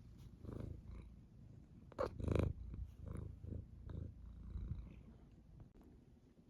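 A cat purring close by, a low pulsing rumble that swells with each breath, loudest about two seconds in.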